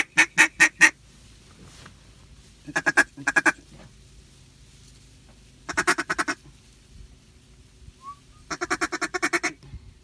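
Mallard duck call blown in loud runs of quick quacks, four runs about three seconds apart, calling to ducks circling overhead.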